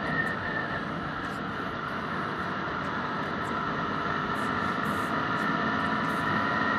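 Honda Twister 250cc single-cylinder motorcycle engine running steadily at highway cruising speed, about 100 km/h, mixed with steady wind rush over the microphone.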